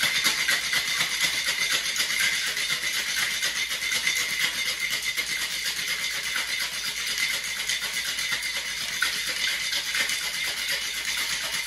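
Ice cubes rattling hard inside a cocktail shaker with the drink's liquid, in a continuous rapid clatter that stops near the end; the shaking dilutes the drink.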